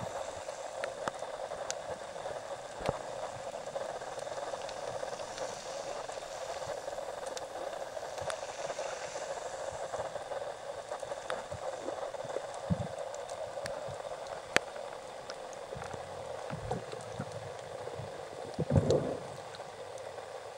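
Underwater ambience picked up by a camera in a waterproof housing: a steady watery hiss with scattered sharp clicks. A few low knocks come near the end.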